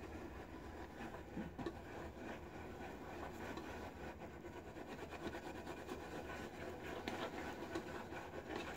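Badger shaving brush whipping Williams mug soap in a small 3D-printed lather bowl: a steady soft wet swishing and rubbing, with a few light clicks of the brush against the bowl. The lather is still thin, airy and bubbly and is being stirred through.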